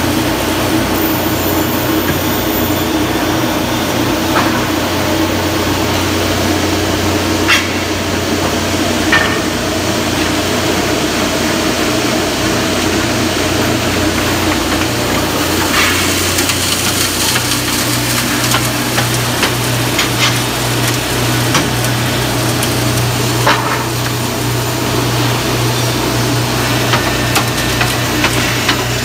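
Industrial finger-jointing line running: a steady motor and conveyor hum, with a few sharp knocks now and then. The low hum shifts slightly higher about two-thirds of the way through.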